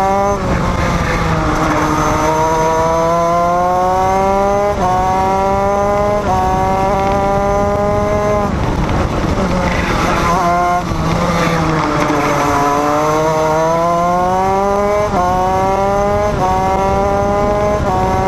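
Racing engine heard onboard, pulling hard and climbing in pitch through the gears, with a sudden drop at each upshift. About nine seconds in it eases off and falls in pitch with a few short blips, then climbs through the gears again.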